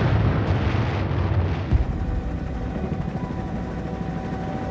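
Explosion sound effect: a deep rumble fading away, then a quieter, steadier rumble with a faint held tone after a sudden change about two seconds in.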